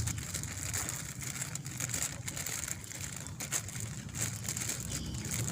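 Plastic bag crinkling and crackling in irregular bursts as it is handled and pulled into place over a plant stalk, over a low steady hum.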